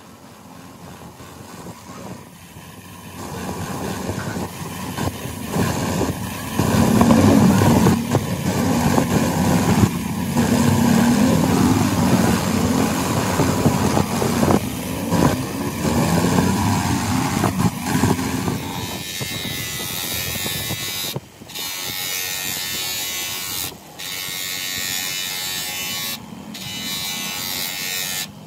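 Bench grinder running with a wire brush wheel scrubbing the threaded screw of a hydraulic jack ram, growing louder over the first several seconds. After about 19 s the grinder drives a buffing wheel polishing the steel ram, a steadier, hissier sound that briefly cuts out three times.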